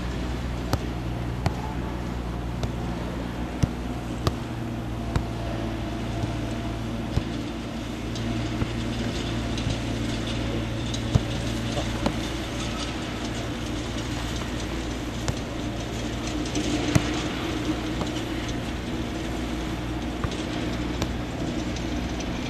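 A football being struck and caught in a goalkeeper drill: a sharp thud every few seconds, over a steady low mechanical hum.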